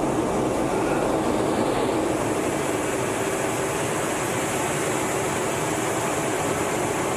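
Steady cockpit noise inside an F-18 Hornet in flight: the twin jet engines and rushing airflow heard through the canopy, with a faint high whine on top, unchanging throughout.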